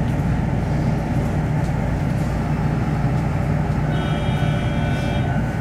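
Steady low hum inside a standing electric train carriage, from its running onboard equipment. About four seconds in, a few faint high steady tones join the hum.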